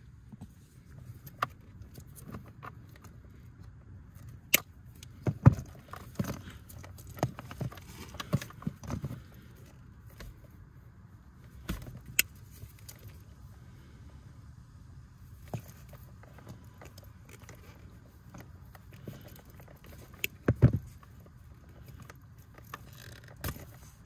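Scattered sharp clicks and snaps from hands handling a plastic electrical connector and its wires while working wire cutters on the harness, with the loudest snaps about five and a half seconds and twenty seconds in.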